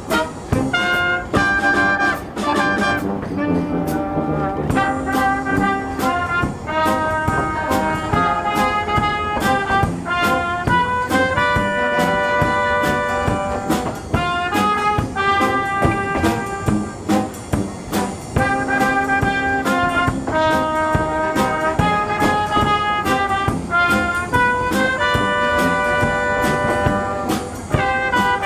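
Brass band music: trumpets and trombones playing a melody over a steady beat.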